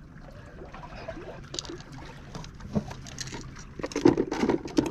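Water sloshing and lapping against the breakwater, with scattered small clicks and knocks and a louder flurry of knocks near the end.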